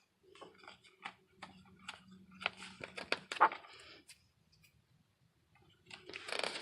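Scattered small clicks and rustling over a faint steady hum, with one sharp, louder click about three and a half seconds in; then a brief lull and a short rustle near the end.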